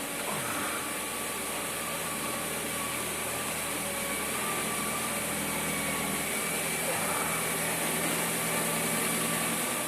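Ford Mondeo IV engine idling, with a steady hum held over it. The hum is put down to the power steering pump, which the owner says hums on cold mornings until the car warms up.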